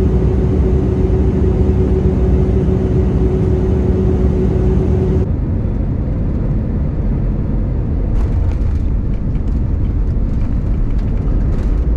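Steady rumble and rush of an airliner cabin in flight or taxi, with a low hum that stops abruptly about five seconds in as the noise changes. Light clicks and rattles come near the end.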